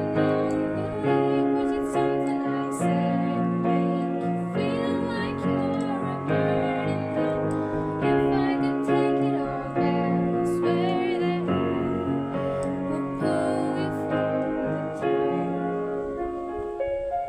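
Music with piano or keyboard playing a slow melody of held notes that change about once a second, with a few wavering voice-like notes.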